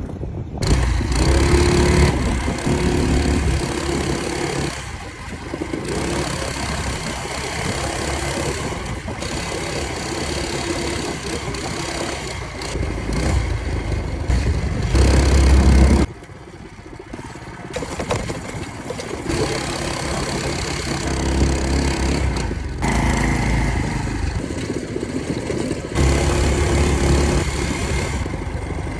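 Small single-cylinder four-stroke engine of a Fatcat FC 212 mini bike running and revving, in several cut-together stretches with sudden changes in loudness.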